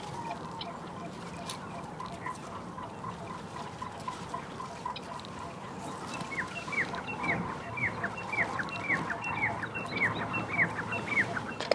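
Birds calling: a steady series of short, repeated notes at about three a second, joined about halfway through by a louder run of quick, hooked chirps.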